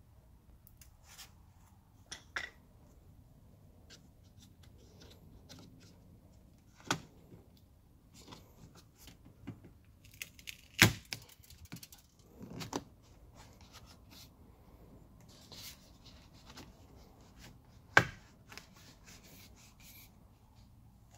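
Hands handling the parts of an Audi S3 8V's bare rear door: scattered light clicks, knocks and rustles, with two sharper knocks, one about halfway through and one near the end.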